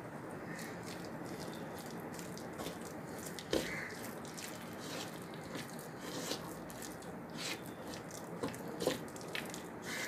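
A hand mixing thick ground urad dal batter with chopped onion, curry leaves and green chilli in a clay bowl, making irregular small sticky clicks and squelches over a steady low hiss.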